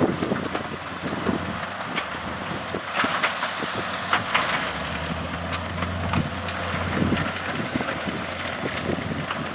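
Heavy earthmoving machine's diesel engine running steadily, with scattered knocks and clanks throughout.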